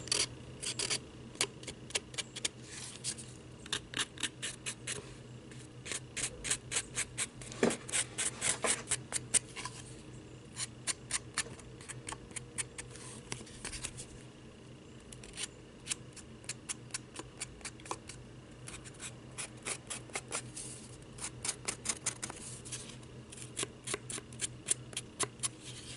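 Black Sharpie permanent marker scratching and dabbing along the cut edge of a cardboard cutout: clusters of quick, short scratchy strokes with brief pauses between them.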